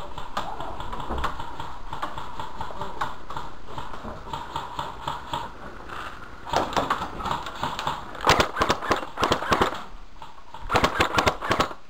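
Airsoft electric guns firing full-auto bursts: rapid strings of sharp clicks, three bursts in the second half, the longest a little over a second.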